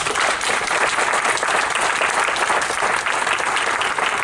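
Audience applauding: many people clapping together, loud and steady.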